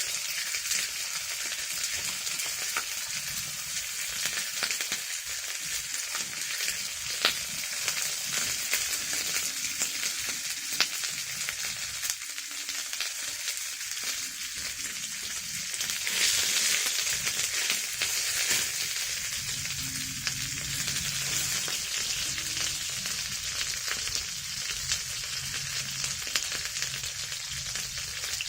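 Chicken legs sizzling in hot oil in a frying pan: a steady hiss with frequent small pops, growing louder for a few seconds past the middle.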